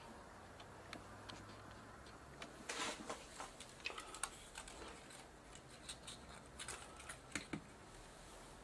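Quiet, irregular small clicks and taps as fingers handle the ribbon-cable connectors and the tape deck chassis inside a camcorder. They start about two and a half seconds in and thin out near the end.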